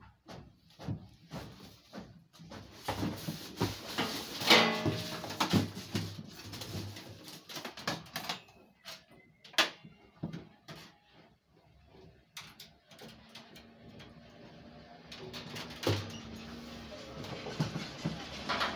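Scattered clicks, knocks and rattles of cable plugs being pushed into the back ports of a desktop computer tower and cables being handled. The loudest sound is a brief pitched squeak about four and a half seconds in, with a shorter one near ten seconds.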